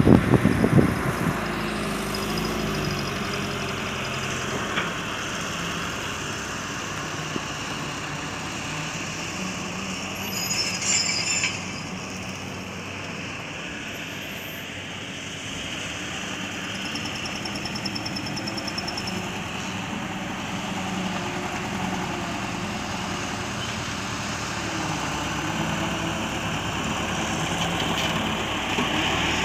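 Engine of a small loaded dump truck running at low speed as it drives slowly across a dirt yard, a steady low hum. There is a short louder burst of noise about ten seconds in.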